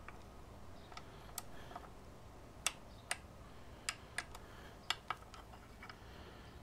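Torque wrench tightening the air filter backing plate screws to spec: about a dozen sharp, separate clicks at uneven intervals.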